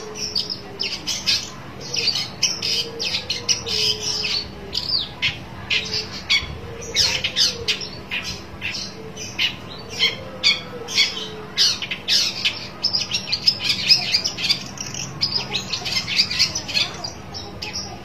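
Long-tailed shrike calling in a dense, nearly unbroken run of short, scratchy notes, a territorial challenge aimed at a rival. A few lower gliding notes sound beneath it now and then.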